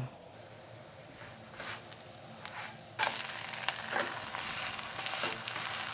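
Potato pancake frying in oil in a nonstick pan, faint at first with a few light scrapes as a spatula is worked under it. About three seconds in the sizzling suddenly turns loud and crackly, as the pancake is turned over with the spatula.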